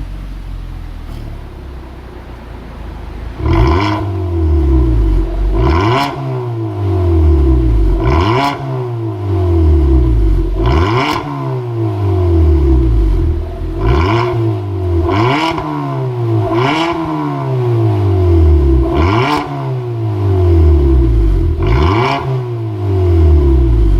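Hyundai Sonata New Rise with an aftermarket dual variable-valve exhaust, revved repeatedly while standing: a steady idle for about three seconds, then about ten quick blips, each rising sharply in pitch and falling back, roughly every two and a half seconds.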